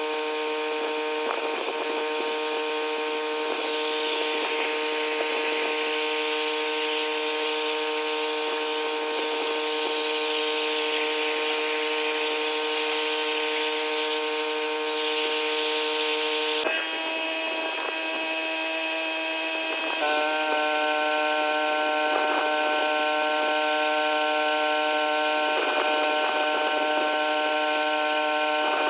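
Pressure washer running steadily, a constant machine whine over the hiss of the spray. The pitch pattern changes abruptly a little past halfway, holds for about three seconds, then switches back.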